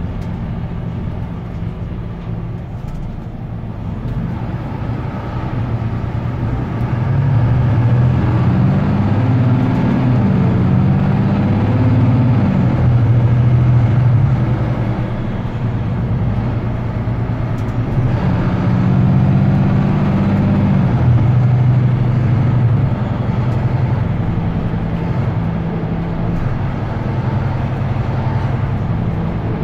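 Mercedes-Benz Citaro C2 hybrid bus's OM936h 7.7-litre six-cylinder diesel under full-throttle kickdown, heard from inside the passenger cabin. The engine note swells and climbs, then drops and climbs again several times as the ZF Ecolife six-speed automatic shifts, with a downshift to fourth.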